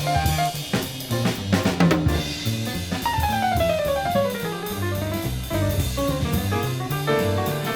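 Instrumental break of a jazz-samba song: a drum kit plays snare, rimshot and bass drum under a bass line. There is a quick cluster of drum strokes about a second in, and a melodic line falling in steps about three seconds in.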